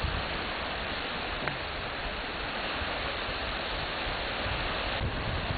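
Wind on the camcorder's microphone: a steady rushing hiss with uneven low buffeting.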